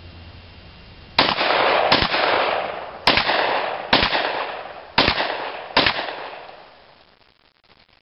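Six pistol shots from a semi-automatic service pistol, about a second apart, each followed by a long echo off the range berms.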